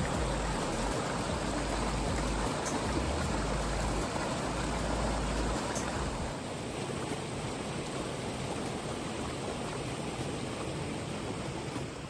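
Mountain stream rushing over boulders and small cascades: a steady rush of water that turns a little softer about halfway through.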